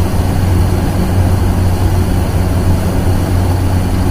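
A heavy engine running steadily: a loud, even rumble with a deep hum.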